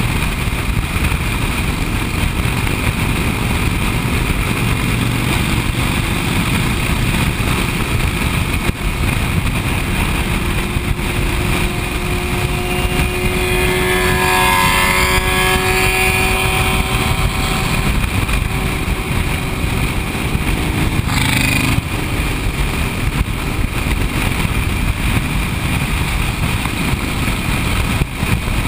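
Motorcycles running at highway speed, with wind rushing over the microphone and steady engine and road noise. About twelve seconds in, a higher-pitched engine whine swells and fades over several seconds as a sport bike rides up alongside. A brief knock comes a few seconds later.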